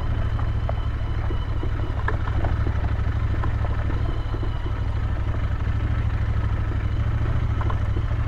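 Royal Enfield Interceptor 650's parallel-twin engine running steadily as the motorcycle rolls slowly along a dirt track, with scattered light clicks over it.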